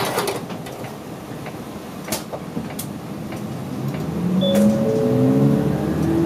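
Route bus's folding front door knocking shut with a few sharp clacks, then the bus's engine revving up with a steadily rising pitch as it pulls away from the stop, a brief two-note steady tone sounding over it.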